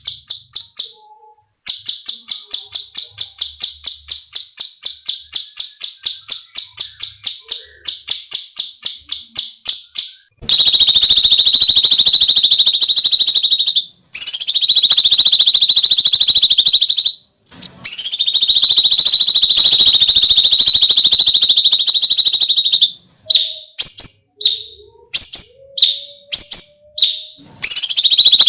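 Cucak cungkok songbird giving its harsh screeching song: first a rapid, even string of sharp high notes, several a second for about eight seconds, then long buzzing trills lasting several seconds each with brief breaks, a handful of short separate notes, and the trill starting again near the end.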